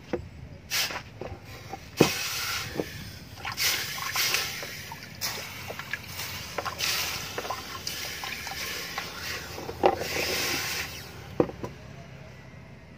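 Hot steel billhook blade being quenched in a basin of water: it is dipped in and out several times, each dip a burst of hissing and sizzling with water sloshing, plus a few sharp knocks, the loudest about two seconds in. The hissing dies down near the end as the blade cools.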